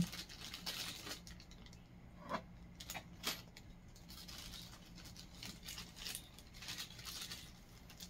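Faint crinkling of a small plastic bag being handled and opened, with scattered light clicks as small screws and molly wall anchors are tipped out onto carpet.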